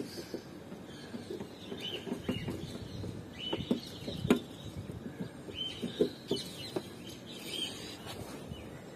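Small birds chirping in short, repeated calls, with scattered light clicks and knocks from hands working at the back of the headlight housing, the loudest about four and six seconds in.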